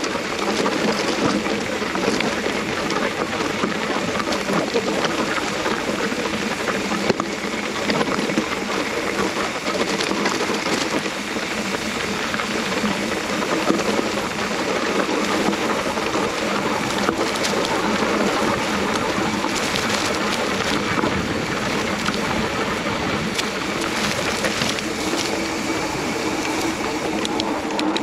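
Mountain bike tyres rolling over a loose stony track: a steady crunching hiss with many small clicks.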